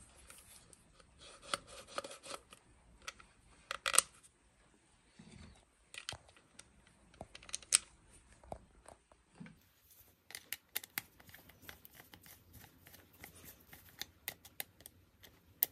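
Hands handling a plastic handlebar throttle and start-switch housing with its wiring: scattered small plastic clicks and rustles, a sharper click about four seconds in and another near eight seconds, then a quicker run of small clicks as a screwdriver works on the housing.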